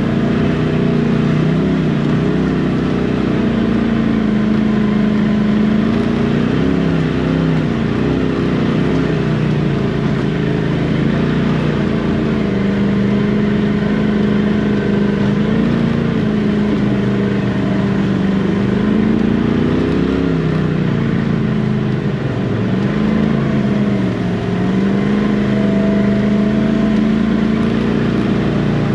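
Side-by-side UTV engine running under load at crawling speed, its pitch rising and falling repeatedly with the throttle.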